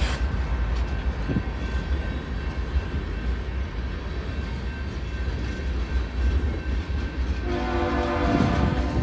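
Freight train's tank cars rolling past with a steady low rumble and a few knocks from the wheels. Starting about seven and a half seconds in, a train's air horn sounds a long, held chord.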